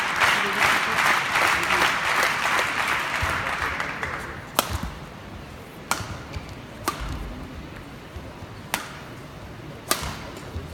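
Crowd applause dying away over the first few seconds, then a badminton rally: five sharp racket strikes on the shuttlecock, roughly one a second.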